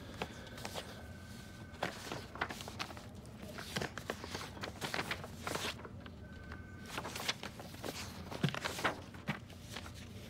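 Sheets of office paper rustling and crinkling as they are leafed through and shuffled by hand, in an irregular series of short rustles.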